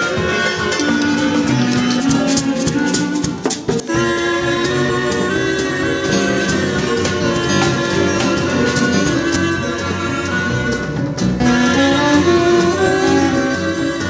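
A live band playing an instrumental piece: clarinet and tenor saxophone over electric guitar, Roland stage piano and drums, with a steady beat. The music dips briefly about three and a half seconds in.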